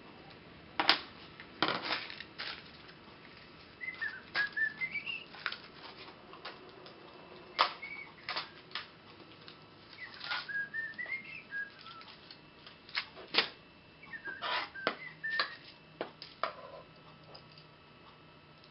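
Irregular sharp metallic clicks and clinks of nuts, washers and threaded steel rods being handled during assembly. A short rising whistled phrase is heard three times.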